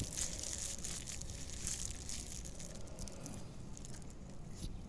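Plastic bag and paper wrapper crinkling and rustling in irregular crackly bursts as roti canai is torn off and dipped into a bag of curry sauce.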